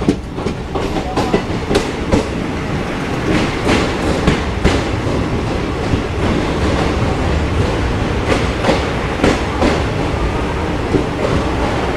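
Netaji Express passenger coaches rolling along a station platform, heard from the coach doorway: a steady rumble with irregular wheel clacks over the rail joints as the train pulls into the station.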